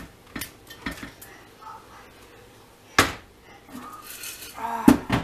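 Kitchenware being handled: a plastic colander and a slow-cooker pot knocking and clattering as rinsed pinto beans are tipped from one into the other. A few separate knocks, the loudest about three seconds in and another pair near the end.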